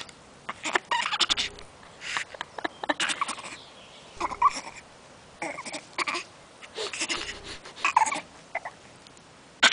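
A baby making gravelly, throaty vocal noises in short bursts with pauses between them, forced enough to strain his throat.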